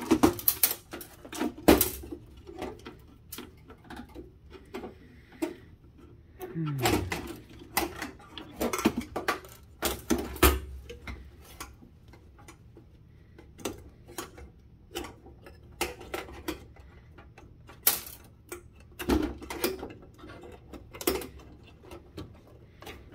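Irregular clicks, knocks and clatter of a circuit board and metal parts being handled and worked out of a sheet-metal instrument chassis, with a brief falling creak about seven seconds in.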